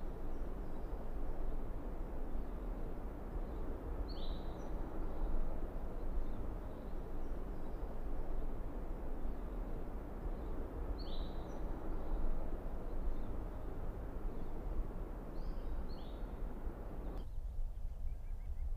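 Steady outdoor ambience, a hiss of wind-like noise over a low rumble, with a bird giving short falling chirps three times. The hiss drops out suddenly near the end, leaving the low rumble.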